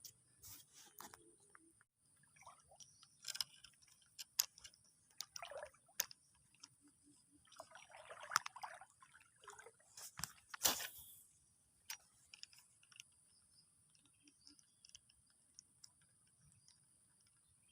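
Quiet, scattered clicks and rustles with a few small water splashes and sloshes, the loudest about eight to eleven seconds in, over a faint steady high-pitched hum.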